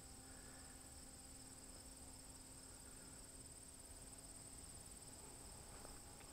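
Near silence: faint steady high-pitched insect trilling, with a faint steady low hum underneath.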